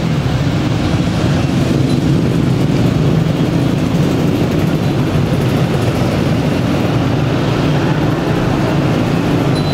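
A group of enduro motorcycles riding past at low speed, many engines running together in a steady, continuous rumble.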